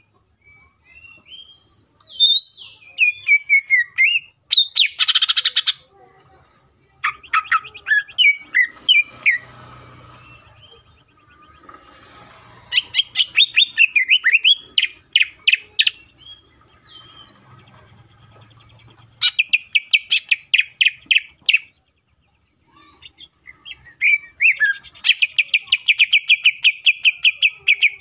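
Male green leafbird (cucak ijo) singing in full song: bursts of rapid repeated high notes, fast trills that rise and fall, several times with short pauses between.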